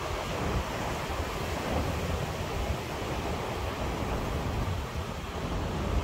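Ocean surf washing steadily on the shore on a breezy night, with gusting wind rumbling on the microphone.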